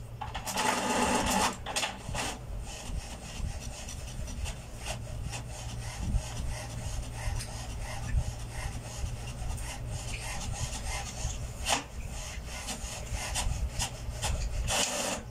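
HP Smart Tank 515 inkjet printer printing a page: a louder whir about half a second in as it draws the sheet from the rear tray, then many short rasping strokes as the print carriage passes back and forth across the page.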